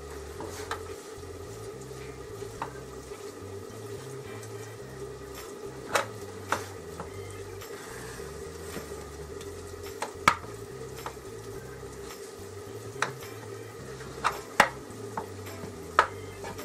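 Wooden spoon stirring and scraping rice in an aluminium roasting pan, pressing it level, with several sharp knocks of the spoon against the metal.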